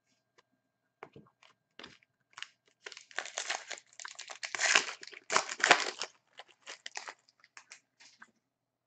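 Foil wrapper of an Upper Deck Artifacts hockey card pack torn open and crinkled by hand: scattered crackles at first, a dense crinkling run in the middle, then a few more crackles.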